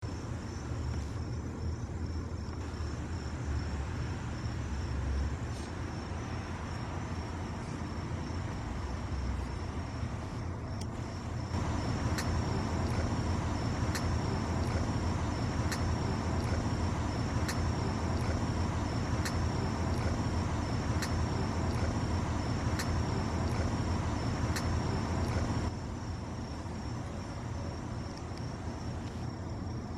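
Outdoor ambience: a steady low rumble under a high, steady insect trill. Partway through, a run of short sharp clicks comes about every two seconds, for roughly a quarter of a minute.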